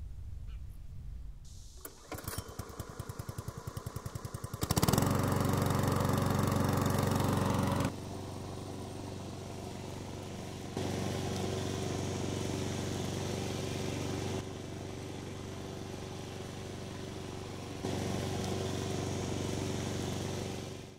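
Briggs & Stratton single-cylinder engine on a walk-behind lawn mower starting: a run of quick beats that speed up, then the engine catches about five seconds in and runs steadily. The running engine then goes on in louder and quieter stretches that change abruptly.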